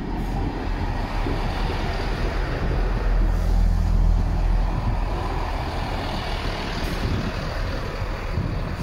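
Class 158 diesel multiple unit rolling into the platform at low speed: a steady low rumble of its underfloor diesel engines and wheels on the rails, loudest about three to four seconds in as the cars pass close by.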